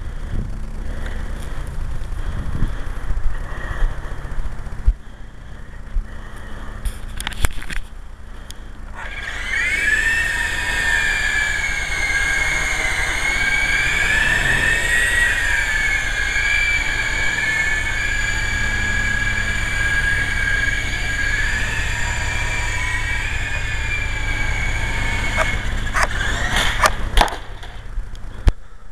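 Syma S033G coaxial RC helicopter's electric motors and rotors whining, starting about a third of the way in, rising at first, then holding with slight wavers in pitch. The whine cuts out near the end, followed by a few sharp clicks. Wind rumbles on the microphone throughout.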